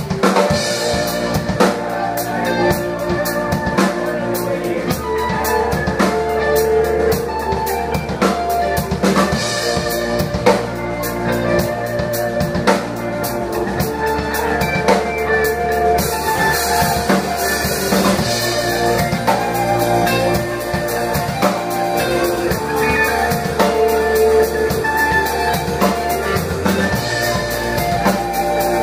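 Alternative rock band playing live, the drum kit's bass drum and snare keeping a steady beat under sustained pitched instruments.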